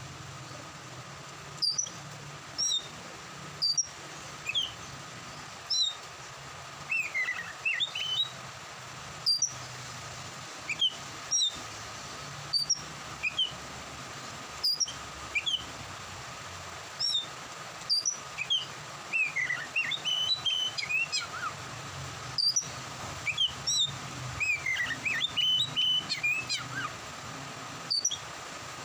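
Oriental magpie-robin singing loud, sharp whistled notes every second or two, with busier runs of quick gliding whistles near the start and through the second half. Behind it is a steady hiss of rain.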